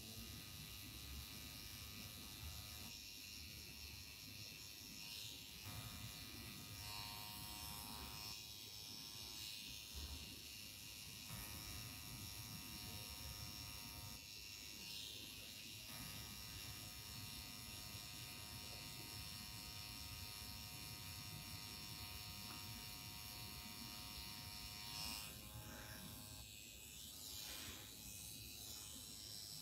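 Pen-style permanent makeup tattoo machine running with a steady, faint electric buzz while its needle works pigment into the eyeliner along the lash line.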